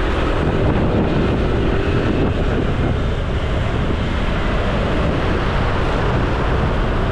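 Wind rushing steadily over the microphone of a moving motorcycle, with engine and traffic noise underneath; a faint engine hum fades out about two seconds in.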